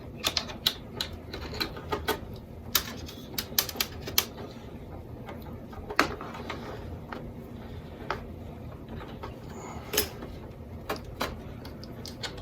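Irregular small clicks and taps of a switch's retaining washer being worked over a bundle of wires and onto a panel-mount switch, in quick clusters over the first few seconds and sparser after.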